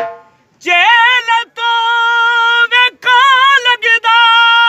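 A lone singer's voice holding long, high notes of a folk song, unaccompanied, with a wavering turn in two of the notes and short breaks between phrases.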